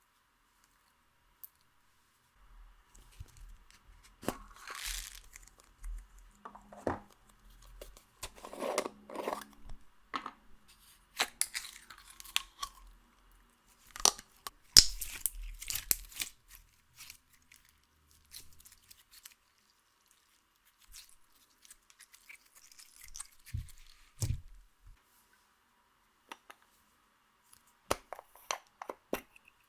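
Clear slime being worked by hand with makeup and glitter mixed in: irregular sticky crackles, pops and tearing sounds in close-up, with gaps between handfuls. There is a lull about two-thirds of the way through, then a couple of dull thumps and more crackling near the end.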